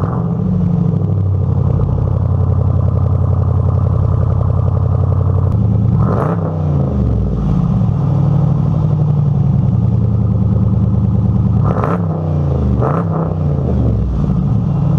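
2012 Jeep Grand Cherokee SRT8's 6.4-litre (392 cubic inch) V8 idling fast just after a cold start through a free-flowing exhaust. It is blipped up and back down about six seconds in, then twice more in quick succession near the end.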